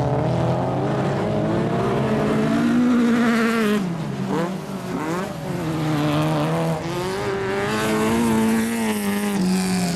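Race car engines revving hard on a dirt track, their pitch repeatedly rising and dropping with throttle and gear changes, more than one engine heard at once.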